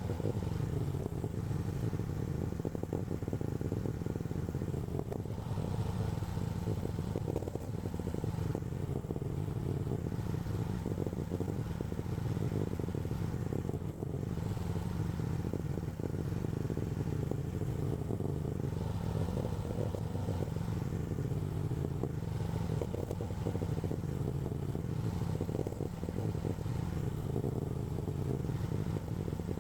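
AGT LH12R mini excavator's engine running steadily while it works, with light intermittent clatter.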